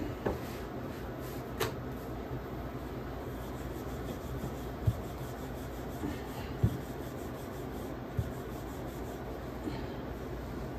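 Wooden rolling pin rolling out chapati dough on a wooden board: a soft rubbing with a few light knocks.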